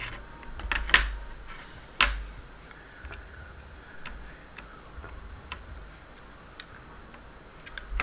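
Scattered small clicks and taps from tools and phone parts being handled during a smartphone screen repair, with two louder clicks about one and two seconds in.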